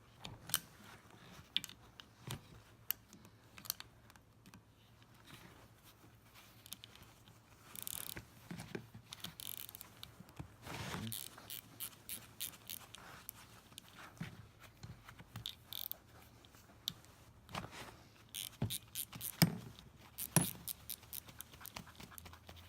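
Scattered metallic clicks, clinks and short scrapes of hand tools and loose parts being handled while a semi-hermetic compressor is taken apart, with one sharper knock near the end, over a faint steady low hum.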